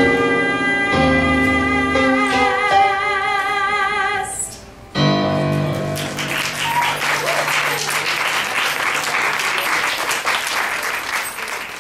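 A woman sings a long held note with a wide vibrato over piano accompaniment, the song ending about four seconds in. After a short break a low piano chord rings on and the audience applauds.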